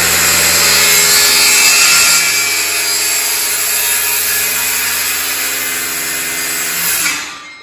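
Circular saw cutting through a wooden rafter board to notch the bird's mouth, a steady loud whine under load. Near the end it swells briefly as the cut finishes, then winds down.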